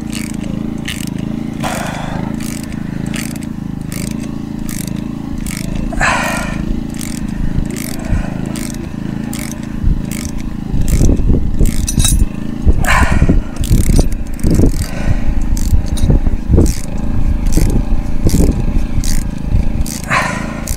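Wind buffeting the microphone: a steady low rumble that breaks into heavy, uneven gusts from about halfway through, with sharp clicks repeating about twice a second throughout.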